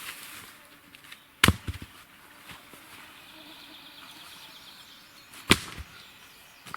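Two sharp knocks about four seconds apart, each followed by a couple of lighter knocks.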